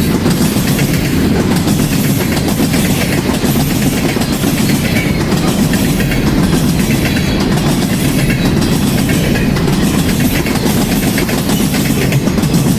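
Freight train cars rolling past: a steady, loud rumble of steel wheels on rail with a clickety-clack from the rail joints.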